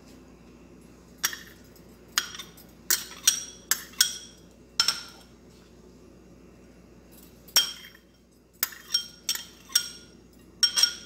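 Small ceramic bowls knocked against the rim of a glass mixing bowl to empty them: a run of sharp, ringing clinks in two bunches with a pause of a couple of seconds between.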